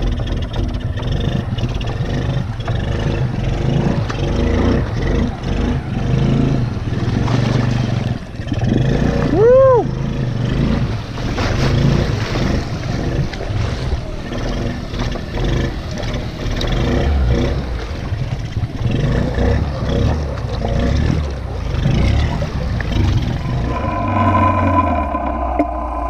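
A 1986 Honda TRX200SX ATV's single-cylinder four-stroke engine running steadily under load as the quad wades through deep water, with water churning around it. About ten seconds in, a brief rising-and-falling tone sounds over the engine.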